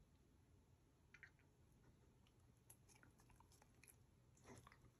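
Near silence: room tone with a few faint, scattered soft clicks and smacks.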